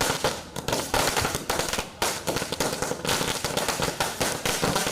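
A string of firecrackers going off in a fast, uneven rattle of sharp bangs, several a second, without a break.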